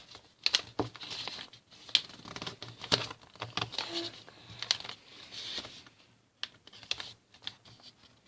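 A sheet of A4 paper being folded and creased by hand: irregular crisp rustles and sharp clicks as the folds are pressed down, thinning out after about six seconds.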